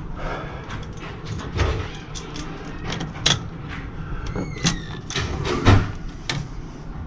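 Irregular knocks, clicks and rattles of parts and tools being handled during repair work, over a steady low hum. A short falling squeak sounds about four and a half seconds in.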